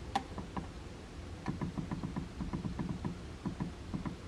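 Buttons on a Honeywell T4 Pro thermostat being pressed in quick succession to set the clock: one sharp click just after the start, then a run of soft clicks, several a second, from about a second and a half in.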